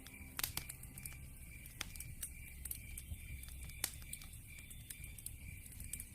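Wood fire crackling in a fireplace: scattered sharp pops and snaps from the burning logs over a low, steady rumble, with the loudest pops about half a second in and near four seconds.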